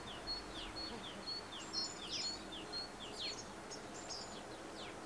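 Small songbirds calling in a steady run of short high chirps, some held briefly on one pitch and others falling quickly.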